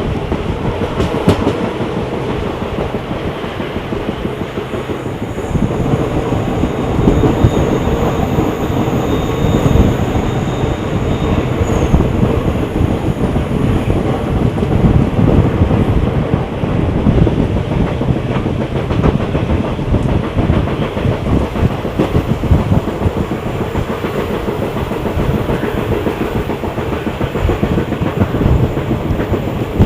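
Passenger train running along the track, heard from on board: a steady rumble with the wheels clattering irregularly on the rails.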